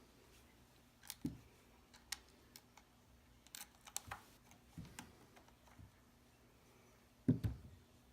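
Scattered clicks and light knocks of GSG-5 .22 rifle parts being handled and fitted together during reassembly, with a heavier thump a little over seven seconds in.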